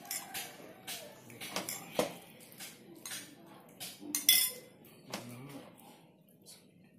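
Metal spoon clinking against an aluminium pot as hand-formed bakso meatballs are scooped off the fist and dropped into hot water. The clinks come at irregular intervals, the loudest about two seconds in and just after four seconds.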